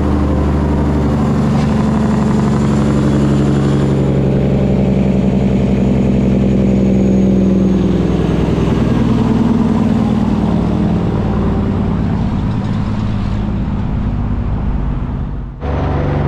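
Heavy truck's diesel engine running steadily under load, its pitch wavering slightly. About fifteen seconds in the sound cuts out abruptly, then engine noise resumes.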